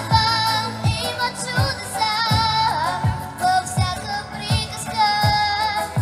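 A young girl singing into a microphone over a backing track, with a steady drum beat of about three beats every two seconds under her voice.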